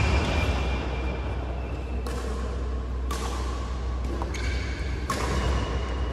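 Steady low hum of a large indoor badminton hall, with short knocks about two, three and five seconds in.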